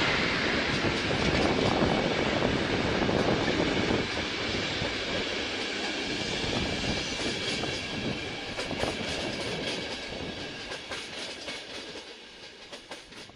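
Czech Railways (České dráhy) passenger coaches rolling past, their wheels clicking over rail joints. The rolling noise fades steadily as the train moves away.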